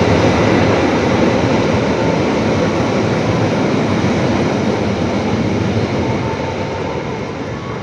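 Train passing close by: a steady rumble of wheels and carriages on the rails that slowly fades as the train moves away.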